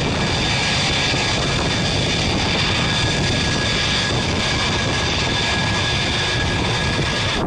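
F-22 Raptor's twin jet engines whining steadily at low power as it taxis past: an even, high whine of several steady tones over a rushing noise.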